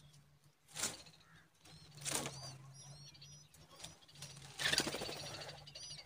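Common babblers at the nest: short, high chirps come in quick runs, broken by several louder rustling bursts as the adult bird arrives at the nest of nestlings.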